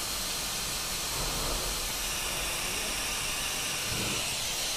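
A steady hiss, even in level throughout, with a faint low hum beneath it.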